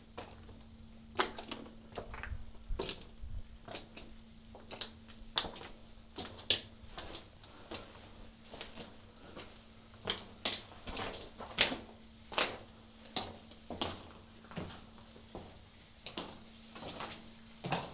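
Footsteps crunching and clicking on loose slate at a walking pace, one or two sharp steps a second, with a faint steady hum underneath.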